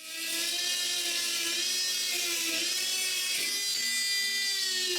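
A high-speed rotary tool spinning a small brass wire brush over carved wood: it starts up at the beginning and runs as a steady high whine that wavers slightly in pitch midway as the brush presses on the wood.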